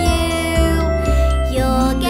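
Children's nursery-rhyme music with a steady bass line changing note about twice a second.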